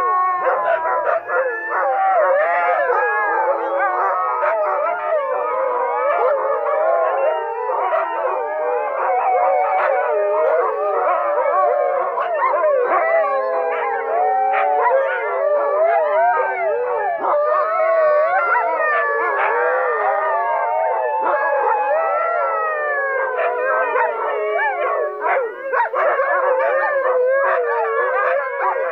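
A pack of huskies howling together, many voices overlapping in long, wavering howls that rise and fall without a break.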